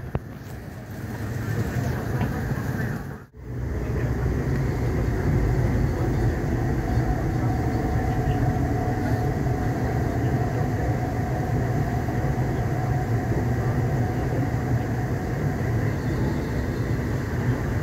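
MTR East Rail Line electric train pulling out of the platform alongside, a steady low rumble of the cars rolling past with a faint steady whine above it. The sound breaks off briefly about three seconds in.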